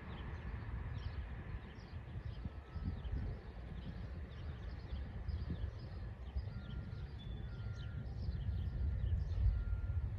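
Birds chirping: many short, falling chirps, several a second, over a steady low outdoor rumble.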